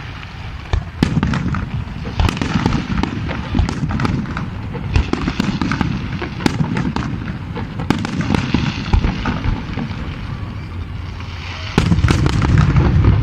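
New Year fireworks display: a rapid run of bangs and crackling pops, which grows louder and denser near the end.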